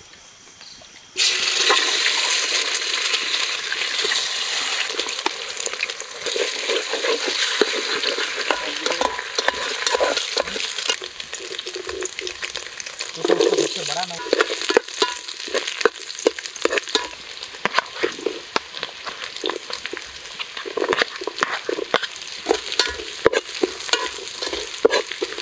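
Beaten egg sizzling in hot oil in an aluminium pot, starting suddenly about a second in, with a spatula scraping and stirring against the pot bottom. Chopped vegetables are tipped into the sizzling pot later on.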